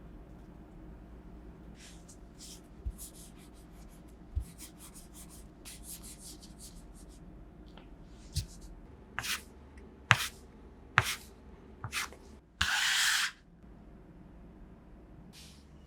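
Hand work on fresh pasta dough at a kitchen work surface: short rubs and scrapes, with a few light knocks spread through, the sharpest about ten seconds in. About three-quarters of the way through comes one brief rushing noise lasting well under a second.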